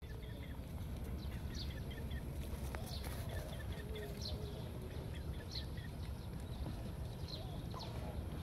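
Outdoor ambience: a steady low rumble of wind on the microphone, with birds chirping in the background, short high chirps every second or so.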